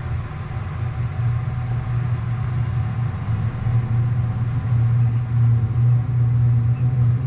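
Cessna Citation business jet's turbofan engine spooling up just after light-off during engine start, a steady low drone growing louder with a faint high whine above it.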